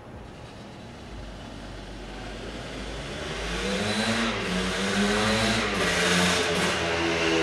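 A 1979 Yamaha IT400 dirt bike's two-stroke single-cylinder engine approaching along the street. It grows steadily louder, and its pitch rises and dips as it is revved.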